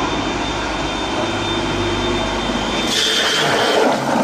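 Stainless-steel colloid mill running: a steady motor hum with a thin high whine. About three seconds in, water starts pouring into its steel hopper, adding a splashing hiss.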